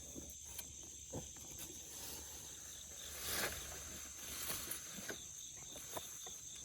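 Crickets and other insects chirping steadily, a high continuous trill with an evenly pulsed chirp under it. About three and a half seconds in there is a brief rustle, with a few faint clicks scattered through.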